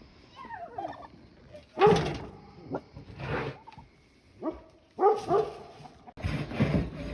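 Turkeys calling in a series of loud, pitched calls, with fowl clucking among them. Near the end a scraping sound starts.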